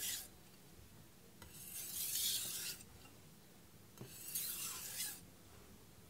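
Aogami #2 steel kitchen knife blade drawn across a Naniwa Pro 1000-grit whetstone in alternating strokes: two gritty scraping strokes about a second long each, with quiet between, as the edge is deburred.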